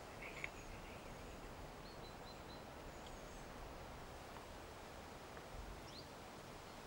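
Faint, steady outdoor background hiss with a few faint, short bird chirps scattered through it, and a single small click about half a second in.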